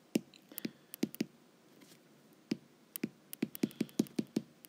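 Stylus tip clicking and tapping on an iPad's glass screen while handwriting. A few sharp taps in the first second, a short pause, then a quick irregular run of clicks from about halfway.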